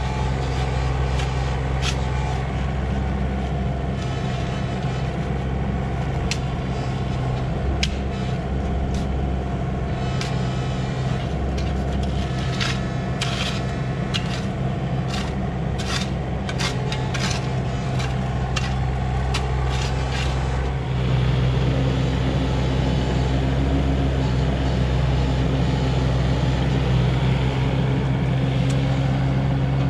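Komatsu PC16 mini excavator's diesel engine running steadily while digging, with a run of sharp scrapes and clinks of steel on stony soil in the middle. About two-thirds of the way through the engine grows louder as the machine works harder.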